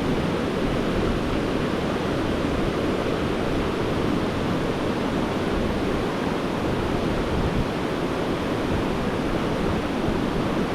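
Steady rush of a mountain trout stream's flowing water, an even hiss with no breaks.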